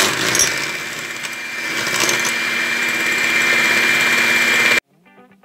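Electric hand mixer running steadily with a high whine, its beaters whisking butter and honey into a beaten egg-and-sugar batter. It cuts off suddenly near the end, and guitar music follows.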